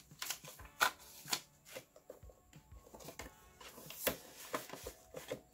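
Polymer banknotes and plastic binder envelopes being handled and flipped through: an irregular run of crisp crackles and snaps, loudest about a second in and again near the four-second mark.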